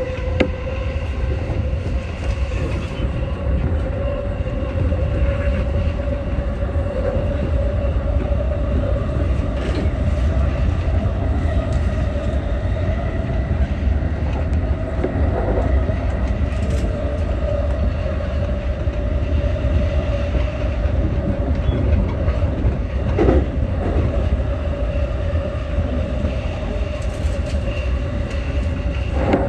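Electric commuter train running, heard from inside the front car: a steady rumble of wheels on rail with a continuous mid-pitched hum that wavers slightly in pitch, and a few faint clicks.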